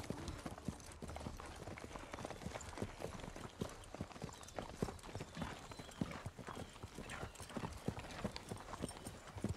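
Hooves of several ridden horses clip-clopping at a walk, a dense, uneven run of footfalls.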